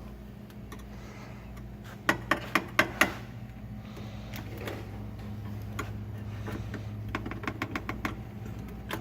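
Sharp metallic clicks and taps: about five quick, loud clicks about two seconds in, then a run of lighter ticks, over a steady low hum.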